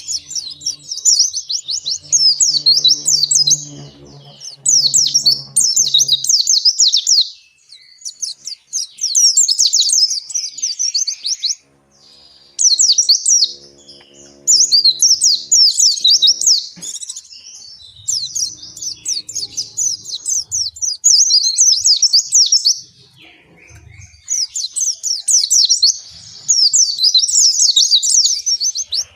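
White-eye (pleci, Zosterops) singing its long continuous 'ngalas' song: rapid high twittering in phrases a few seconds long with short breaks between.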